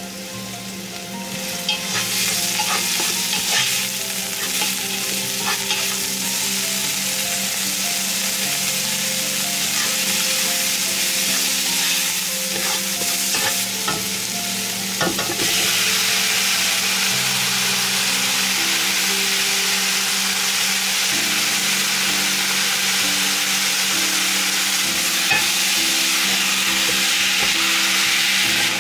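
Diced onion, garlic and ginger sizzling in hot oil in a pot while being stirred, with small scrapes and taps of the spoon. About halfway through, cubed raw pork goes into the pot and the sizzle turns louder and steadier as the pork is stirred with a wooden spoon.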